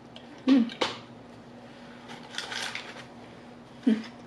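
Close-miked eating noises: chewing and lip smacks from a mouthful of burger. In the middle comes a soft rustle of cardboard and paper food packaging, all over a faint steady hum.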